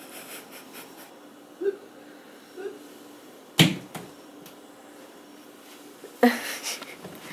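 Handling noises in a carpeted room: a sharp knock about halfway through, a fainter knock just after it, and a short burst of scuffling and rustling near the end.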